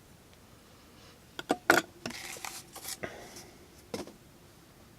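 Folding pocket knife cutting cardboard: a few sharp cracks about a second and a half in, then a short rasping slice, and one more click near the end.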